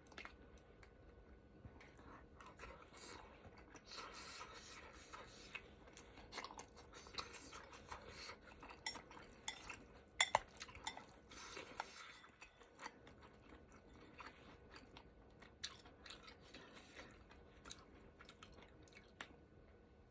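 A person chewing hot pot food, with scattered clinks of utensils against dishes; the sharpest clinks come about ten seconds in.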